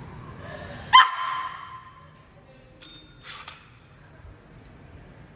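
Pet dog giving one sharp, high-pitched bark about a second in, followed by a few faint clicks.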